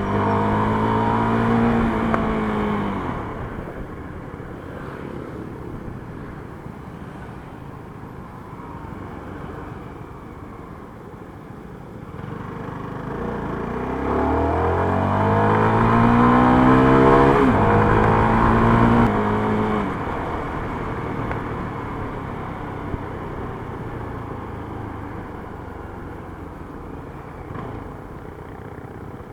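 CFMoto 300SR's stock exhaust and engine heard while riding: the revs fall as the throttle closes near the start, then about halfway through it accelerates with a rising engine note, shifts up once and the throttle rolls off. A steady road and wind noise fills the quieter stretches.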